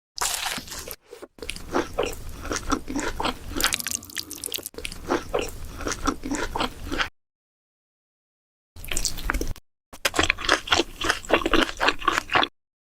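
Close-up mukbang eating sounds: rapid crunching and chewing of food, a dense run of crisp bites that stops dead about seven seconds in and resumes nearly two seconds later.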